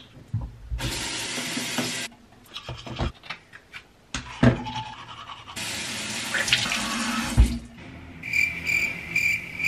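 Bathroom sink tap running in two spells of a second or two, with knocks and clicks of a toothpaste tube and toothbrush being handled, and teeth being brushed. Near the end come a few short, evenly spaced high beeps.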